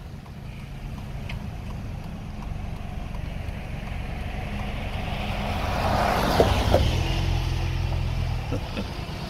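Road vehicle noise on wet pavement: a steady low rumble, with a swell of tyre hiss and engine hum that peaks about six seconds in and then fades.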